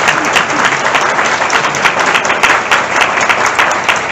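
Audience applauding: many people clapping steadily in a lecture hall, welcoming a speaker to the podium.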